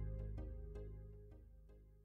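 Instrumental background music fading out, its repeated notes dying away to silence about three-quarters of the way through.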